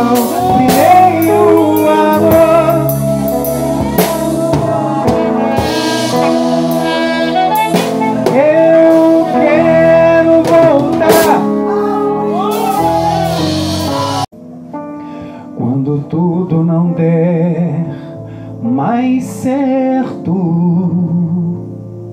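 Live gospel worship song: a male singer with a wavering vibrato melody over a band with drums. About two-thirds of the way through the music cuts off abruptly, leaving a quieter, broken-up melody over a soft held accompaniment.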